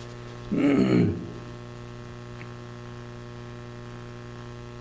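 A man's voice speaks a word briefly about half a second in. After that there is only a steady electrical mains hum.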